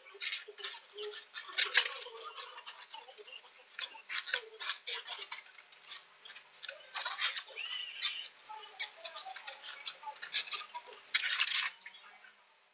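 Latex modelling balloons rubbing and squeaking against each other as they are handled, in quick irregular strokes with a few short squeaks.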